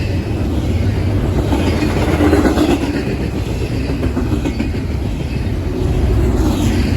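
Double-stack intermodal freight cars rolling past at close range, a steady loud rumble with wheels clacking over the rail joints.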